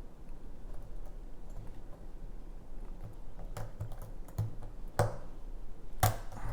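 Lock pick and tension wrench working the pins of a custom pin-tumbler challenge lock: faint scratching and ticking, with sharper metallic clicks in the second half, the two loudest near the end.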